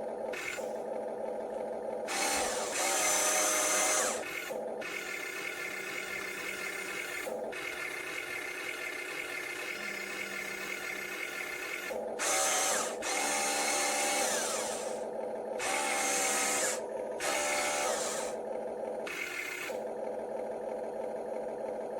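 Small electric motors and plastic gearbox of a kolegend K201 RC dump truck whining steadily. The whine swells in several louder stretches of a second or two as the drive or dump mechanism works harder.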